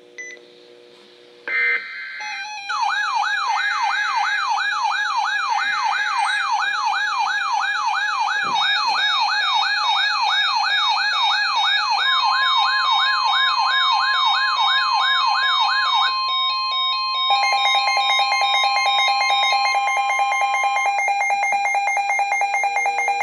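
Weather radio alert alarms going off together for an incoming warning. A warbling siren tone, about two and a half sweeps a second, runs from about three seconds in to about sixteen seconds. A steady single tone, the NOAA Weather Radio 1050 Hz warning alert tone, joins about twelve seconds in and stops near the end. A rapid, even beeping takes over from about seventeen seconds.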